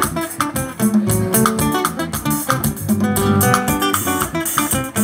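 A live band playing an instrumental intro: acoustic guitar strummed and picked over electric bass guitar, with drum and cymbal hits keeping a steady beat.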